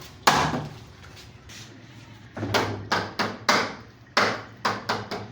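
Hammer blows on wood: a single strike, then after a pause two quick runs of about five strikes each.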